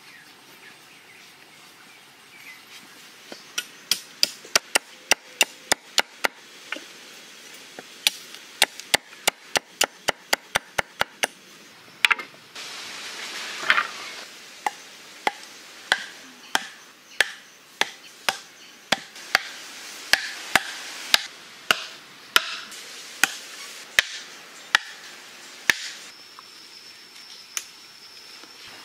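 Sharp chopping strikes on wooden sticks: a quick run of blows, then a slower, evenly paced series of strikes.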